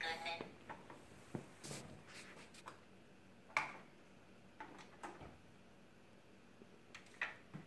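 Scattered light clicks and knocks of plastic as hands handle a plastic SpongeBob toy and its pieces, the sharpest about three and a half seconds in and another near the end.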